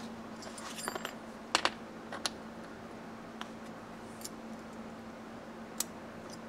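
Small steel engine parts clicking and clinking as the countershaft sprocket is fitted on the transmission shaft and its lock washer handled: a short cluster of clicks about a second in, the loudest pair about a second and a half in, then a few scattered single clicks.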